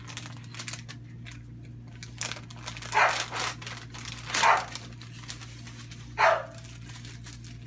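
A dog barks three times, starting about three seconds in, over the light rustle of a sterile pack being opened and a steady low hum.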